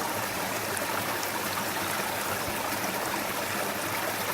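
Creek water rushing steadily over rocks, an even, unbroken rush.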